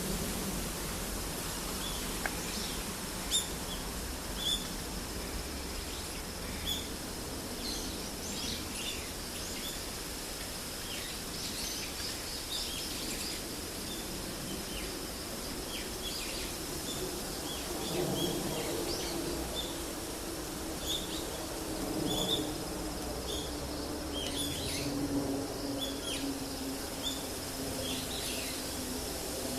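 Small birds chirping outdoors: many short, high chirps scattered throughout, over a faint steady high tone. A low drone made of a few steady tones joins in about halfway through.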